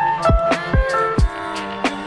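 Background music with a steady beat: a kick drum about two and a half times a second under held melodic notes.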